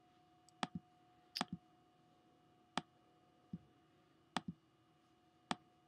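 Computer mouse button clicking, about six sharp clicks spread irregularly, some as quick double clicks, over a faint steady hum.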